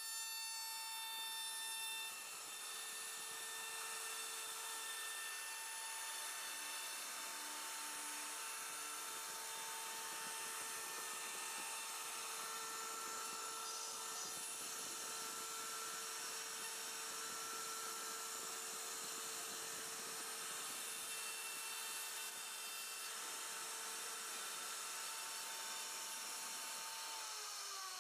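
CNC router spindle with a small end mill carving relief patterns into a wooden panel: a steady high whine over the hiss of the bit cutting wood. Near the end the whine falls in pitch.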